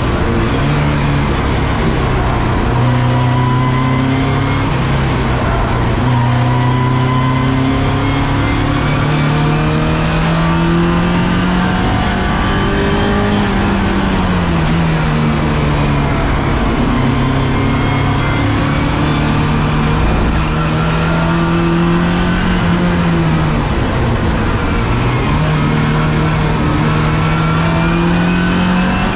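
Race car engine heard from inside the stripped, roll-caged cockpit, running hard under load. Its pitch climbs slowly, falls off about halfway and again a few seconds before the end, then climbs once more.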